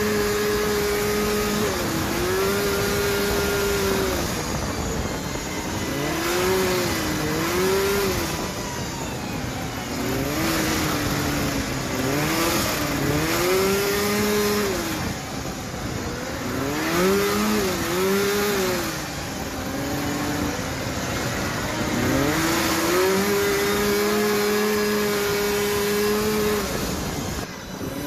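Off-road buggy engine heard from onboard on a dirt trail. It holds a steady pitch, then dips and climbs again several times, over a steady rush of wind and tyre noise.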